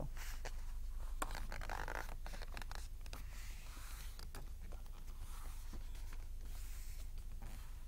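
Sheets of paper being folded and creased by hand on a tabletop: scattered rustling, scraping and light taps as hands slide and press along the paper, over a faint steady low hum.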